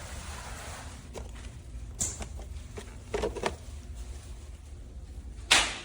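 A few scattered clicks and knocks, the loudest about five and a half seconds in, over a faint low hum.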